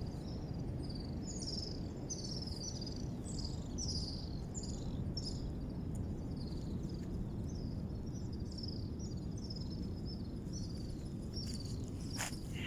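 Outdoor ambience: a steady low rumble under a continuous run of short, high chirping calls, several a second. A few sharp clicks come near the end.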